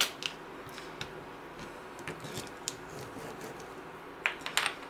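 Small clicks and scratches of a non-metal tool being pushed into the grooves of a 3D-printed PLA panel, pressing vinyl down into them, with a short cluster of louder clicks near the end.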